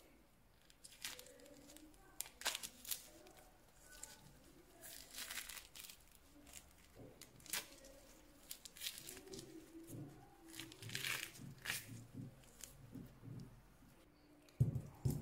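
Mandarin rind being peeled away by hand: crisp tearing and crackling rips in irregular bursts. A low thump near the end is the loudest sound.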